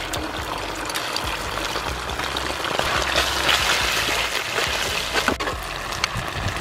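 Chili sauce and chopped garlic sizzling in hot oil in a frying pan, stirred with a spatula. The sizzle swells about three seconds in, and a few sharp knocks of the spatula against the pan come near the end.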